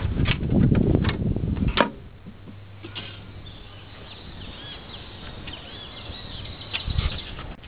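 Knocks and handling noise as the upper intake plenum is set down and seated on the engine, ending with a last sharp knock about two seconds in. Then quieter, with birds chirping faintly, and another knock near the end.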